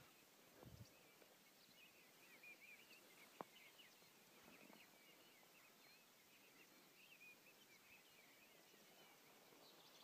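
Faint twittering of many small birds: short, quick chirps that keep going. A low thump comes just under a second in and a single sharp click about three seconds later.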